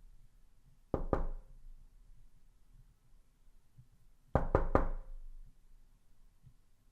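Knocking on a door: a quick double knock about a second in, then three quick knocks about three seconds later, over a faint low hum.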